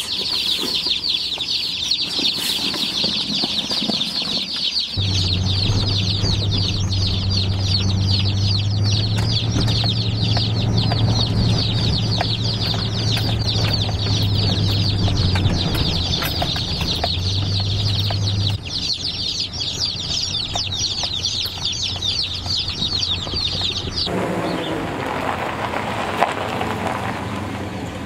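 A box of about fifty day-old chicks peeping constantly in a dense, high chorus. From about five seconds in, a vehicle engine's steady low drone runs underneath for a while. The peeping stops a few seconds before the end.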